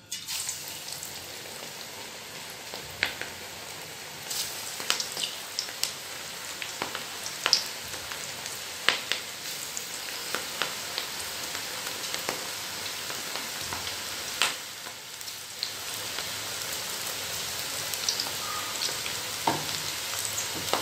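Cabbage pakoras (gram-flour batter fritters) deep-frying in hot oil: a steady sizzle with frequent sharp crackles and pops.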